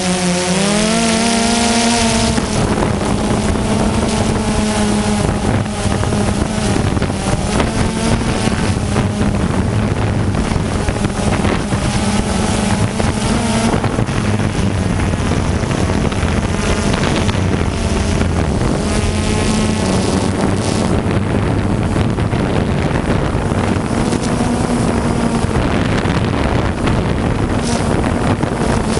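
DJI Phantom 2 quadcopter's four brushless motors and propellers humming up close, the pitch sliding up and down as the rotors change speed, with wind buffeting the microphone.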